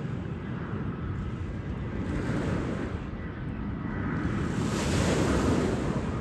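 Wind buffeting the microphone over waves washing on the shore, with a wash swelling louder about four and a half seconds in. A faint steady hum from the low airliner on approach sits underneath.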